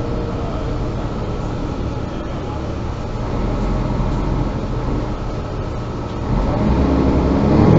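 Mercedes-Benz Citaro G articulated bus under way, heard from inside the passenger cabin: a steady diesel engine and running rumble that grows louder about six seconds in, the engine note rising near the end.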